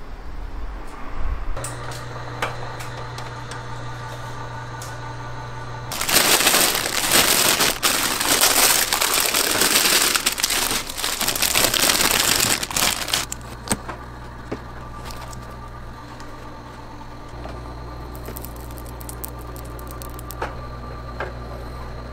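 Plastic bag of burger buns crinkling and rustling loudly for about seven seconds, starting about six seconds in, as the buns are pulled out. Before and after it, a steady low hum with scattered light clicks.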